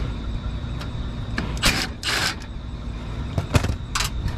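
Metal scraping and clicking as a furnace burner assembly is slid back in a rooftop unit's burner compartment: two short scrapes about a second and a half in, then a few sharp clicks near the end, over a steady low rumble.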